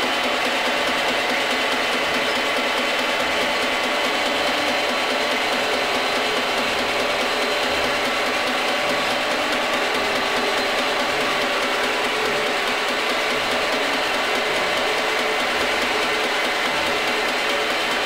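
Geared-head milling machine running steadily with a whine of several steady tones from its spindle drive, as a small drill bores holes in a brass valve guide-cover.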